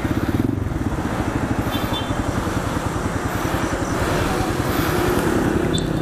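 Single-cylinder 150 cc motorcycle engine running steadily under way, its firing pulses even, getting slightly louder about four seconds in.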